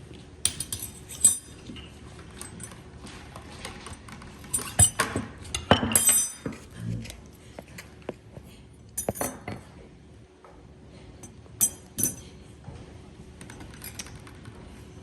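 Slime being pressed and worked by hand in its container: sharp clicks, pops and small clinks in short bursts a few seconds apart.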